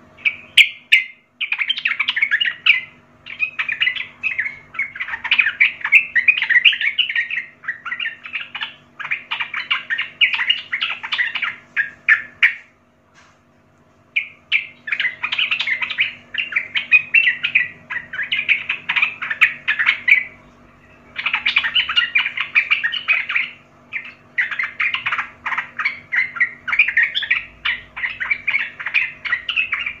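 Yellow-vented bulbul (trucukan) singing: fast chattering song phrases of a few seconds each, separated by short pauses, with two longer breaks, one near the middle and one about two-thirds of the way through.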